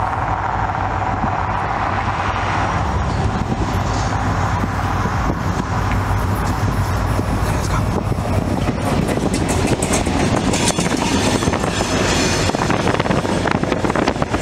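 EMD SD40-2 diesel locomotives of a freight train running, with a steady low engine hum as they approach. Partway through, the sound changes to being heard from a car pacing the train, with wind buffeting and road rush over the locomotive.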